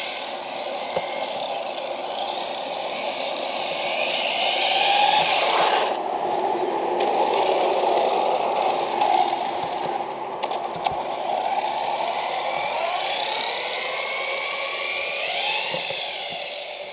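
Traxxas Slash 4x4 VXL RC truck's brushless electric motor and drivetrain whining, the pitch climbing and dropping again and again as the truck speeds up and slows down, with tyre noise on concrete.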